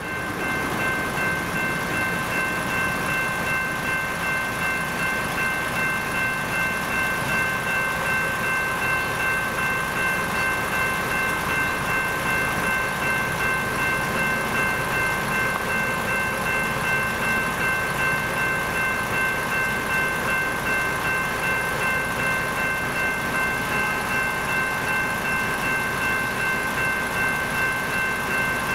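Electronic level-crossing bells (General Signals E-Bell Type 2) ringing steadily in even, repeated strokes, warning that the crossing is activated and the boom gates are down.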